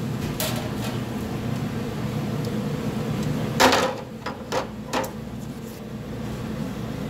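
A loud metal clank about halfway through, followed by three lighter clanks within the next second and a half: cookware being handled at a large aluminium stockpot. A steady low machine hum runs underneath.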